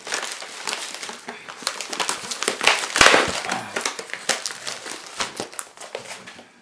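Shipping packages being handled: crinkling and rustling of packaging with many small clicks and knocks. It is busiest about three seconds in and thins out near the end.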